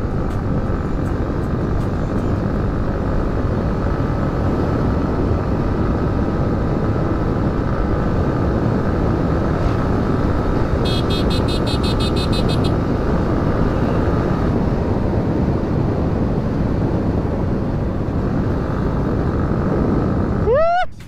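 Yamaha MT-15 motorcycle cruising at speed on the highway: engine running steady under heavy wind rush over the helmet microphone. About halfway through there is a brief high, rapid pulsing sound, and the noise cuts off sharply near the end.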